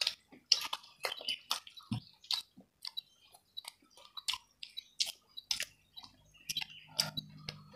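People chewing and smacking their lips over a meal of free-range chicken and rice eaten by hand: a run of irregular short wet clicks and smacks.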